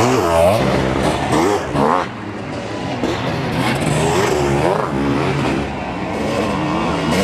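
Sidecar motocross outfit engines revving hard under racing load, the pitch repeatedly rising and falling.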